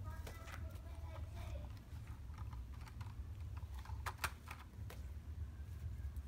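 Scattered light clicks and knocks from a baby monkey scrambling about with a plastic toy airplane, a quick cluster of them about four seconds in, over a steady low hum.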